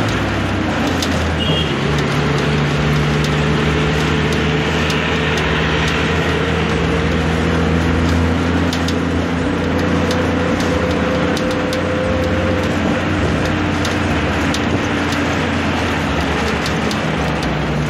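Bus engine and road noise heard from inside the bus by an open window while it drives along, the engine note climbing slowly as it gathers speed, with scattered rattling clicks.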